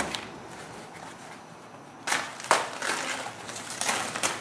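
White plastic packing wrap being pulled and torn off a spoiler by hand, rustling and crinkling in irregular bursts. A sharp snap at the start, then the crinkling comes in louder from about two seconds in.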